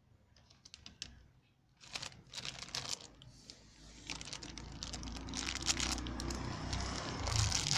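Clear plastic bag holding a brake master cylinder repair kit crinkling as it is handled, with small sharp clicks; the crinkling grows denser and louder from about two seconds in.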